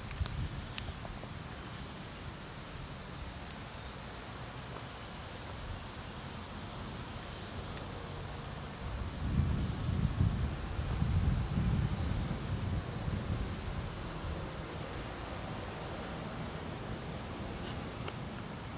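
Insects calling steadily outdoors, a shrill high drone that pulses faintly for a few seconds. Around nine to twelve seconds in, low rumbling gusts of wind buffet the microphone and are the loudest sound.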